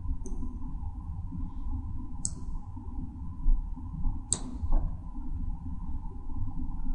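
Computer mouse button clicked three times, about two seconds apart, over a low steady background hum.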